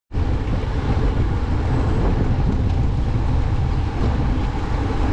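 Wind rushing over the microphone of a road bike descending at speed, a steady, heavy low rumble with hiss above it.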